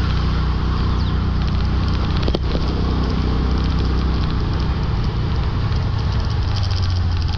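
Motorbike engine running at riding speed, its note shifting slightly, under a steady rush of wind and road noise.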